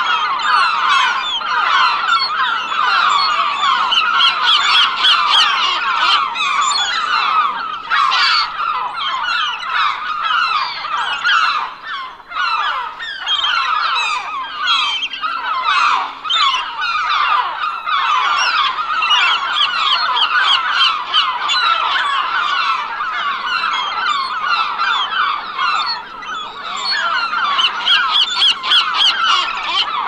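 A large flock of seagulls calling without pause, many loud squawking cries overlapping one another, briefly thinning about twelve seconds in.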